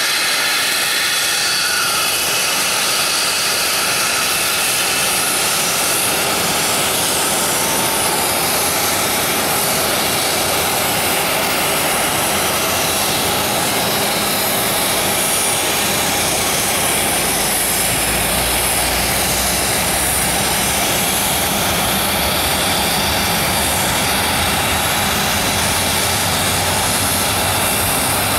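Allegiant Airbus A319's jet engines running as the airliner taxis away from the gate, a steady loud rushing roar that holds level throughout.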